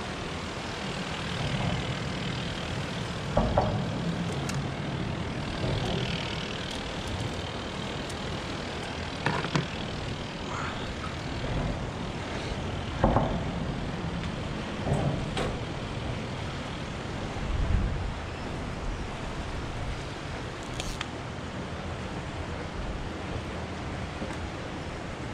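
Steady outdoor rumble and hiss of passing traffic, wind and water, broken by a few brief knocks and clatters of fishing gear being handled.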